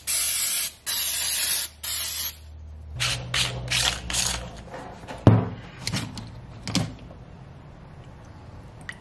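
A loud hiss in several bursts with short breaks through the first two seconds. Then clicks, rattles and a sharp knock as a plastic fuel filter housing is handled and taken apart.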